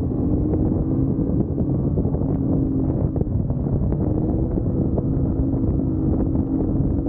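Ski-Doo Renegade Enduro 800R E-TEC snowmobile's two-stroke twin engine running at a steady cruising pitch as the sled rides along, with a low rumble and wind noise on the microphone.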